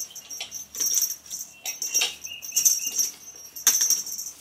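A fabric cat tunnel rustling and a feather wand toy swishing against it as a cat scrambles and bats inside, in several short, loud rustles about a second apart.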